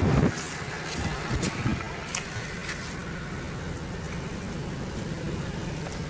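Steady low hum of a Toyota's engine and tyres heard from inside the cabin as the car rolls slowly. A loud thump comes right at the start, then a few light clicks in the first two seconds.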